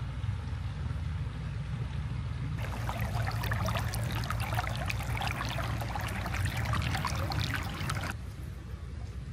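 A shallow stream trickling and splashing over stones, over a steady low rumble. From about three seconds in to about eight seconds the splashing is close and bright, then drops back abruptly.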